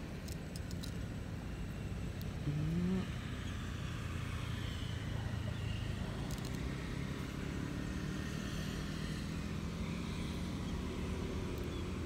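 Low steady rumble of a running motor engine, with a short rising tone about two and a half seconds in.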